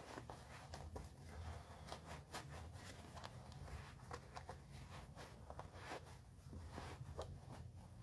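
Faint rustling and small clicks of fabric being handled as a sewn clutch bag is turned right side out through the gap left in its lining, over a faint low hum.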